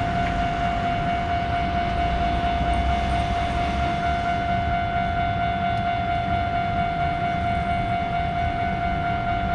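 Japanese railroad crossing warning alarm sounding as one steady, unbroken ringing tone over a low rumble from a train on the line.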